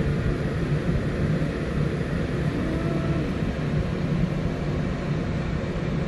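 Steady low hum of a New York City subway car standing at a station with its doors open.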